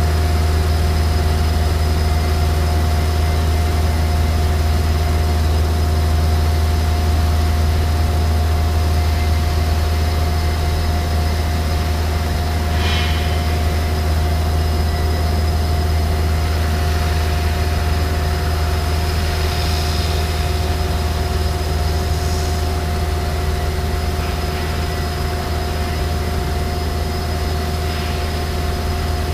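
ESCO PM III 1530 abrasive fast-wire CNC profile saw running while it cuts a dense polyisocyanurate foam block: a steady, loud low hum with constant whining tones over it. A few faint, brief scraping sounds come and go partway through.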